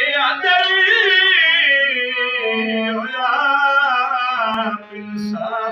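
A man singing long, wavering held notes of a Punjabi dohra over a harmonium playing steady low notes. The voice breaks off briefly near the end while the harmonium carries on.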